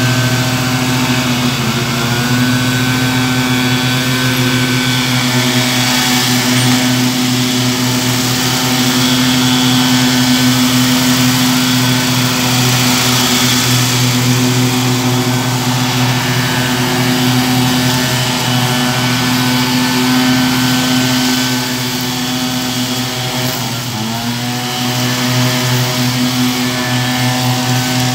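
Wright stand-on commercial lawn mower's engine running steadily while mowing, a constant engine hum whose pitch dips briefly and recovers about a second and a half in and again near the end.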